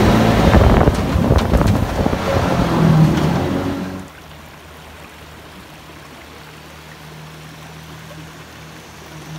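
Jet boat engine running hard with water rushing past the hull, heard from on board. About four seconds in it cuts to a much quieter steady hum of a jet boat passing at a distance, over the rush of a shallow river riffle.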